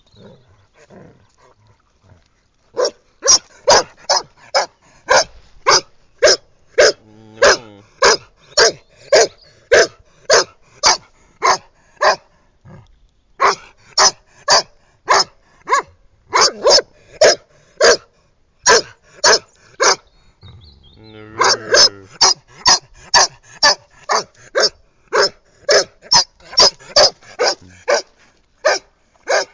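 Irish setter barking in play, a long run of sharp barks at about two a second, with short breaks about ten and eighteen seconds in.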